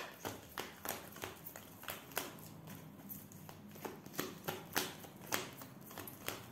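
A deck of tarot cards being shuffled by hand: a run of short, irregular card slaps and flicks, a few of them louder.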